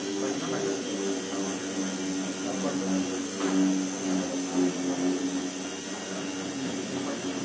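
Small air-powered random orbital sander running with a steady whirr and air hiss, its pad sanding the oxidised plastic lens of a car headlight. The pitch wavers slightly as the pad is pressed and moved over the lens.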